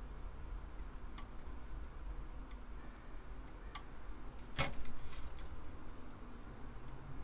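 Faint, irregular clicks and ticks from a fine-tipped soldering iron working the pins of a surface-mount SD card socket, with one louder short crackle about four and a half seconds in, over a steady low hum.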